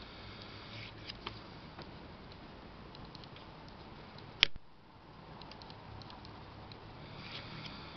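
Morgan silver dollars handled over a small digital pocket scale: faint rustling and light clicks, then one sharp metallic click about four and a half seconds in as a coin is set down on the scale's metal pan.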